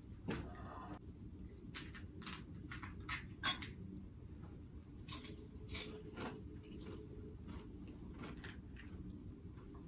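Scattered light clinks and taps of cutlery against dishes, a dozen or so short sharp ticks, the loudest about three and a half seconds in, over a faint low background hum.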